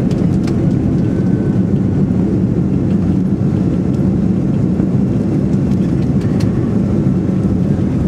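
Steady low rumble of airliner cabin noise inside an Airbus A330, from engines, airflow and running gear, with a few faint rattling clicks.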